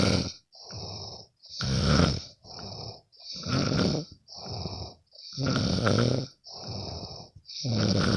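A sleeping person snoring in a steady rhythm: a loud, rattling snore about every two seconds, each followed by a softer breath.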